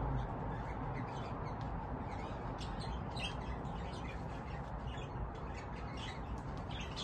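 Budgies chattering: many short chirps and tweets, scattered and irregular, over a steady low background hiss.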